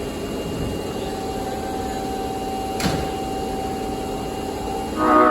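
Osaka Metro 22 series subway train running, with a steady hum and a faint steady tone, and a single click about three seconds in. Near the end comes a short, loud blast of its horn, a horn whose sound the uploader finds abnormal and asks whether it is pitched low.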